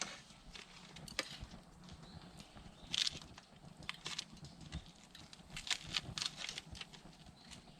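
Wood campfire crackling, with irregular sharp pops and snaps, a brief flurry about three seconds in and another around six seconds. The burning wood is oozing and boiling sap.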